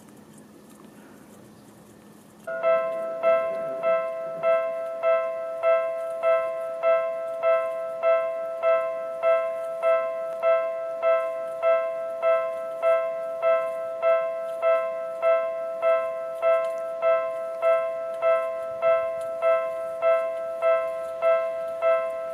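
Japanese railway level-crossing warning bell, an electronic ding of several notes, starting about two and a half seconds in and then repeating evenly a little under twice a second. It signals that a train is approaching and the crossing is closing.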